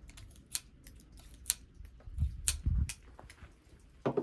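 A handful of sharp, light clicks and ticks at irregular intervals, with a couple of dull low thumps a little past the middle: hard objects being handled at a shooting bench.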